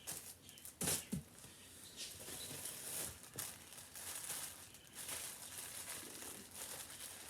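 Plastic clothing packaging crinkling and rustling as packaged garments are handled, with a sharper crackle about a second in.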